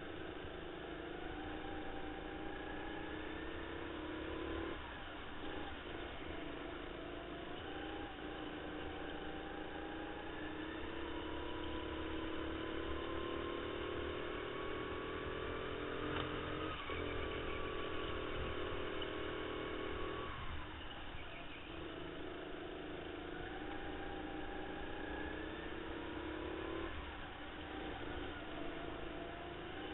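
Indoor racing go-kart heard on board, its motor pitch climbing steadily for several seconds along each straight, then dropping off abruptly as the driver lifts for a corner, several times over.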